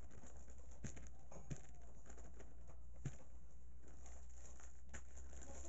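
Wooden tamping sticks packing sawdust substrate into plastic mushroom fruiting bags: about four dull knocks at uneven intervals, with the plastic bag crinkling. A steady low hum runs underneath.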